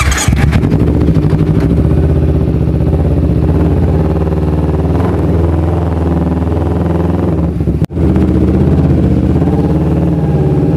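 Sport motorcycle engine running steadily as the bike is ridden. The sound breaks off for an instant about eight seconds in, then carries on.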